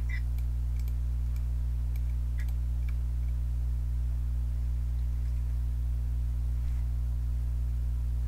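Steady low electrical hum in the microphone signal. A few faint computer-mouse clicks come in the first three seconds.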